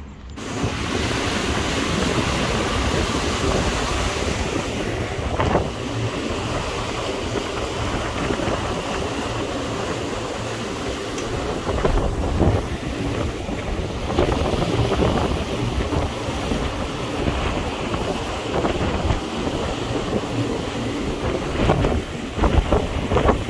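Wind buffeting the microphone on the open deck of a catamaran under way, with sea water washing along the hull; a steady rush with a few stronger gusts.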